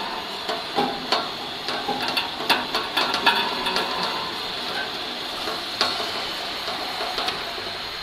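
Irregular metal knocks and clanks from the bubble washing machine's stainless-steel conveyor-belt frame as the belt is lowered back down. The knocks come thickest in the first half, over the machine's steady running noise.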